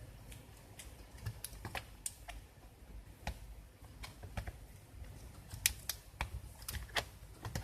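Irregular sharp clicks and taps of plastic and small parts being handled as a laptop is put back together.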